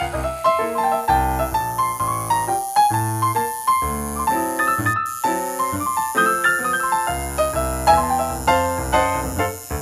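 Background piano music, a steady run of notes with several sounding at once, with a momentary break about halfway through.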